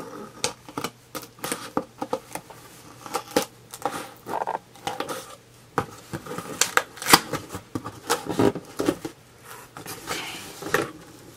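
Scissors cutting through the packing tape on a cardboard shipping box, with the cardboard being handled and pulled open: irregular sharp clicks and scrapes, loudest about seven seconds in.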